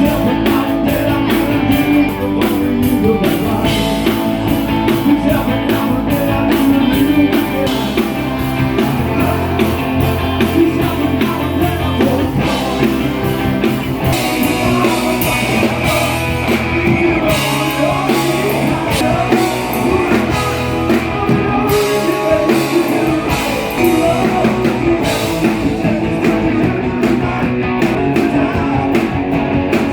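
Live rock band playing: electric guitar and drum kit with a steady beat, and a voice singing over them.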